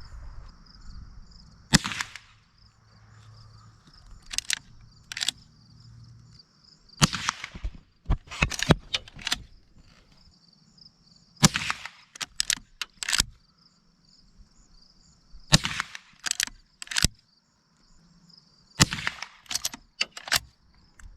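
Henry Golden Boy .22 lever-action rifle firing about five sharp shots a few seconds apart, with the lever worked between shots in a few softer metallic clicks. A steady high chirring of crickets runs underneath.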